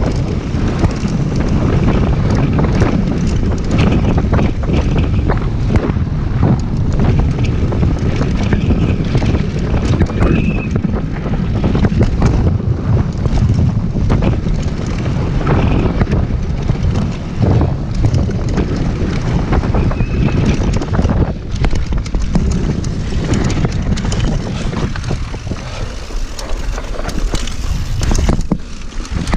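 Wind buffeting an action-camera microphone at speed, over the steady clatter and rattle of a downhill mountain bike (chain, suspension and tyres) running over loose, rocky gravel. Two brief high squeaks come about a third and two-thirds of the way through.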